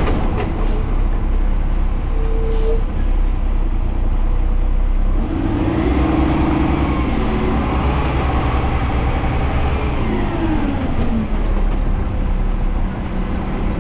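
Side-load garbage truck's engine running, its note climbing about five seconds in and falling back about six seconds later.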